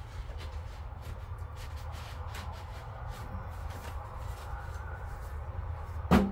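Light paper rustling as a greeting card is handled and tucked back into its envelope, over a steady low rumble, then one sharp thump near the end.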